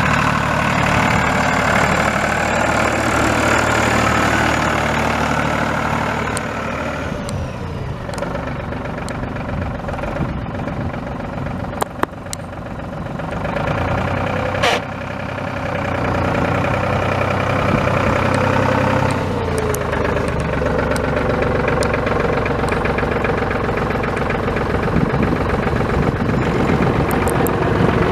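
A 2007 Challenger MT345B tractor's Sisu three-cylinder diesel engine running. About seven seconds in its pitch falls and it quietens; a couple of sharp clicks follow, and about halfway through it picks back up and runs on steadily.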